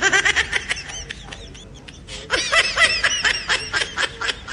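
High-pitched laughter in quick repeated pulses, in two bouts: one at the start and a longer one about two seconds in.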